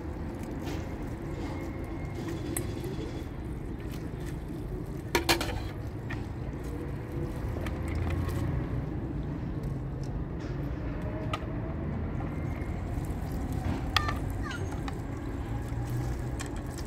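Dishes being rinsed under a running hose: a steady low rush of water with sharp clinks of crockery and a metal bowl, the loudest about five seconds in and another near fourteen seconds.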